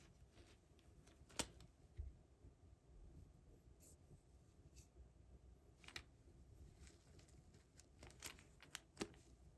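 Faint handling sounds: a few scattered light clicks and rustles as packaging and parts are handled, over quiet room tone, with a cluster of clicks near the end.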